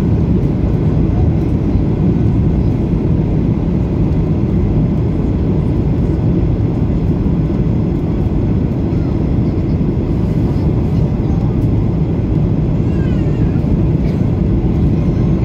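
Steady cabin noise inside an Airbus A320-family airliner on final approach with flaps extended: a continuous low roar of engines and rushing air, with no distinct events.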